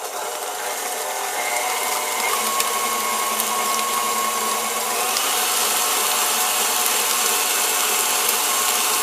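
Electric mixer running steadily with a motor whine, creaming butter, sugar, egg and milk together for cookie dough.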